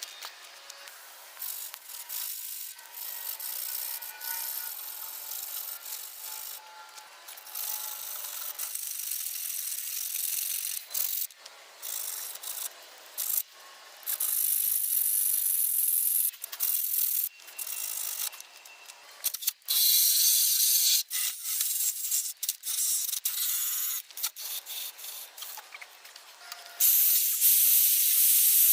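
A wire brush spun by an electric drill scrubbing rust off car body steel. It comes in irregular stretches that start and stop abruptly, getting louder in the second half.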